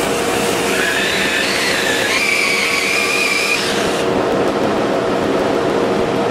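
Electric drill spinning a foam-backed sanding disc against a green butternut bowl: a steady motor whine over the rush of abrasive on wood, with higher tones that climb in steps through the first few seconds and then drop away.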